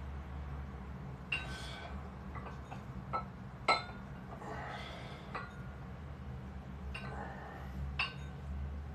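Kitchen dishes and utensils being handled: a scattering of sharp clinks and knocks, one louder clink near the middle, with softer clatter and rustling between them.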